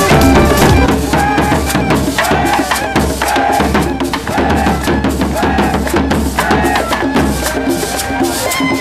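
Traditional Colombian folk percussion ensemble playing: barrel-shaped hand drums beaten in a fast, dense rhythm with shakers and clacking strikes, and a pitched melody line over it.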